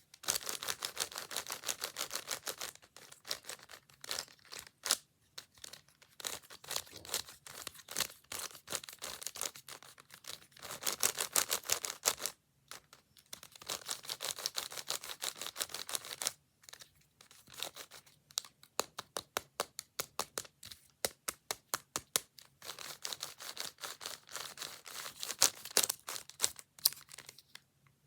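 Plastic puzzle cube being twisted by hand: rapid clicking of the layers turning, in bursts of several seconds with short pauses between.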